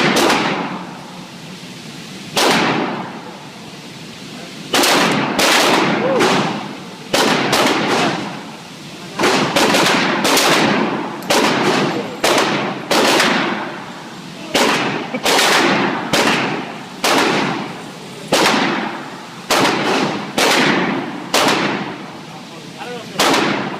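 Pistol gunfire in an indoor shooting range: about two dozen sharp shots at an uneven pace, each with a booming echo off the walls.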